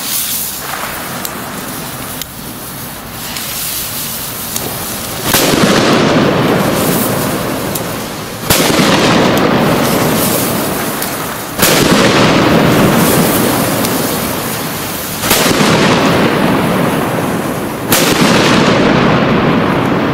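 Ars Pirotecnia Trueno Nanotrons firecrackers (0.7 g bangers) going off. There is a series of sharp bangs, the loudest five a few seconds apart, and each is followed by several seconds of rumbling.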